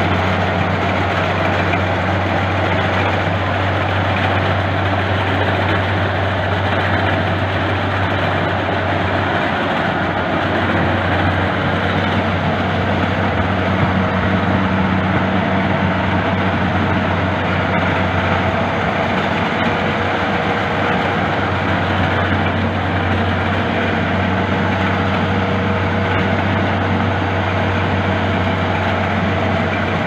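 Crawler corn combine harvester running steadily while shelling corn into sacks: a constant low engine hum under an even rush of noise from its threshing works, unchanging throughout.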